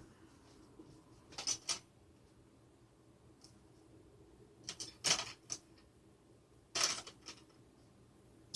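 A few sharp clicks and clatters of small hard parts being handled during reassembly of a range extender, in three brief clusters.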